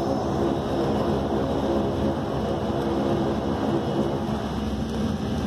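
Saab 340's twin turboprop engines and propellers running steadily, heard from inside the cabin as the aircraft rolls on the ground after landing: an even drone with a stack of steady propeller tones.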